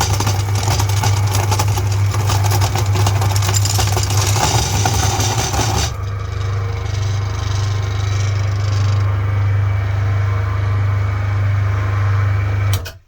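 Meat grinder running with a steady low motor hum, grinding fruity gum candy, with a dense crunching, squishing noise over it for about the first six seconds. After that the motor runs on more lightly and quietly until it is switched off near the end.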